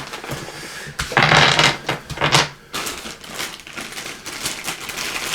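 Packaging crinkling and rustling, with small game pieces clicking as board-game components are handled. Two loud bursts of crinkling come about a second in and again a little later, then quicker light clicks and rustles.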